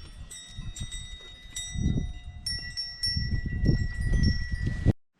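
Several metal bells or chimes ringing with long, overlapping high tones that start at different moments, over a loud low rumble on the microphone. It all cuts off abruptly near the end.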